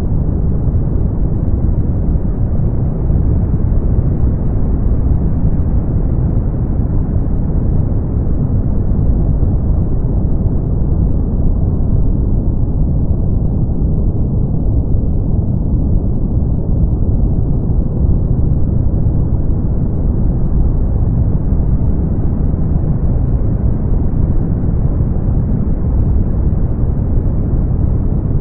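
Brown noise: a steady, deep rushing hiss with its weight in the bass and almost nothing in the high end. It turns slightly duller for a few seconds midway.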